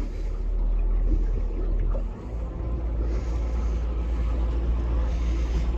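Mercury 300 hp V8 outboard motor running quietly with the boat underway, a steady low drone that dips briefly about two seconds in, then settles at a slightly changed note. A hiss of wind and water rises from about three seconds in.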